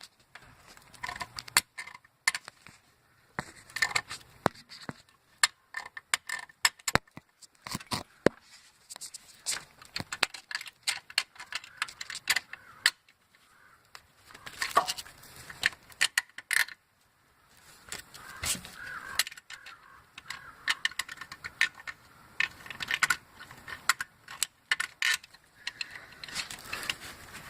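Loose metal bracket under a '99 Mustang Cobra engine clinking and rattling in quick, irregular metallic clicks. This loose bracket is the source of the ticking and tapping noise that had seemed to come from the engine.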